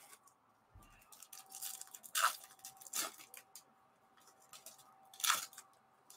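Wrapper of a Topps baseball card pack being torn open and crinkled by hand, in short crackles, loudest about two seconds in and again about five seconds in.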